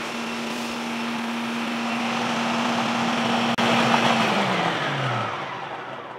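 Food processor motor running steadily as it purées a thick feta dip. A little past four seconds in it is switched off and winds down, its pitch falling until it stops.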